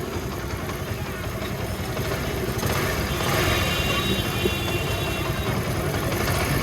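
Chinese-built 70cc single-cylinder four-stroke motorcycle engine idling steadily, getting a little louder about three seconds in. It has a newly replaced timing chain and a repaired silencer, and runs clean without the earlier timing-chain noise, an excellent sound to the mechanic.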